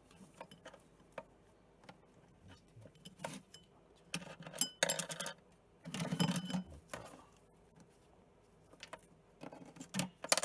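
Small hard bird toys clicking and clattering as a cockatiel plays with them: scattered taps, with two busier bursts of rattling about four and a half and six seconds in.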